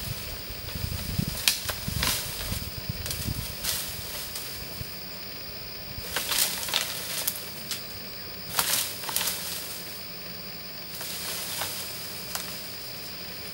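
Whitetail buck thrashing its antlers in sapling branches, a pre-rut marking behaviour: several spells of rustling leaves and snapping, cracking twigs, separated by short pauses.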